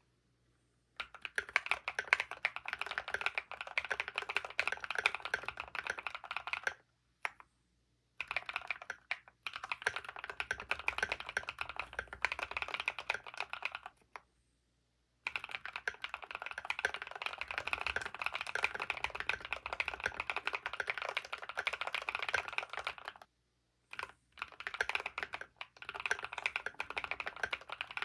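Fast typing on a custom mechanical keyboard: a Varo AC067 with factory-lubed Pure Berry switches on a gasket-mounted aluminium plate, tape-modded and filled with Thinsulate foam, with Drop MT3 keycaps. The keystrokes come as dense runs of several seconds, broken by short pauses.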